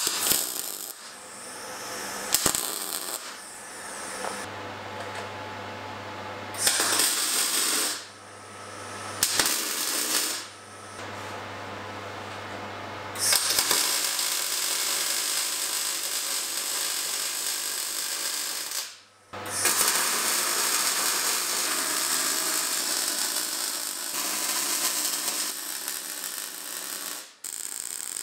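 MIG welder arcing on steel tube: a crackling, hissing arc in stop-start bursts, three short welds in the first half, then two long runs of about five and eight seconds. A steady low hum sits between the early welds.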